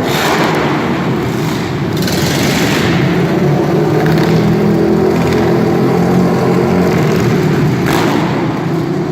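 Monster truck engine running loud and revving, its tone clearest in the middle of the stretch.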